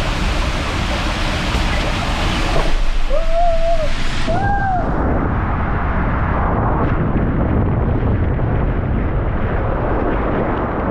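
Loud rushing water and wind buffeting the microphone. Two short rising-and-falling calls come through about three and four seconds in, and just after them the sound turns muffled, its high end dropping away.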